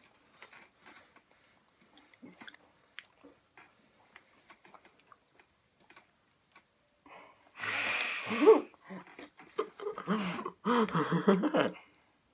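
Faint crunchy chewing of a Butterfinger candy bar, then two loud, breathy bursts of laughter in the second half.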